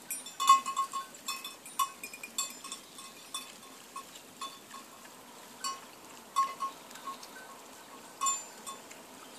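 A small bell clinking irregularly, a dozen or so short rings of the same note. They come thickest in the first two seconds, with the loudest about half a second in.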